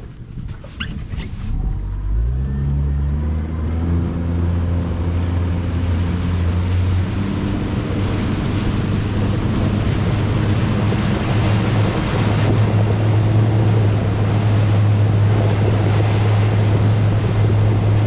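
Motorboat engine speeding up from about two seconds in, its pitch rising for several seconds and then holding steady at cruising speed, with wind on the microphone and water rushing past the hull.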